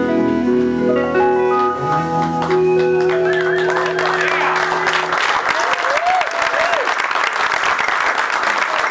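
A live band's final held chord rings out and stops about five seconds in, as audience applause swells up and takes over, with a few whoops above it.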